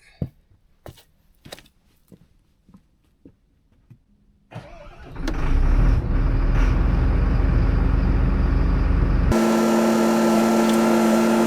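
A few light metal knocks and clicks, then a motor starts about four and a half seconds in and runs loud and steady. About nine seconds in its sound changes to a steadier hum with held tones, and it winds down at the very end.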